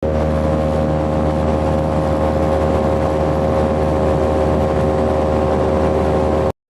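Small high-speed electric motor spinning a homemade cooling fan, running steadily at a fixed pitch with a whine over a rush of air. It cuts off suddenly near the end.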